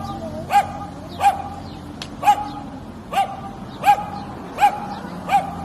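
A large dog barking in single barks, seven of them at a steady pace of roughly one a second, each short and rising then falling in pitch.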